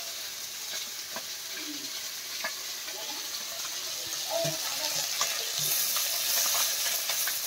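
Small fish frying in hot oil in an aluminium karahi: a steady sizzle that gets louder about two-thirds of the way through, with a few light clicks of a metal spatula turning the fish.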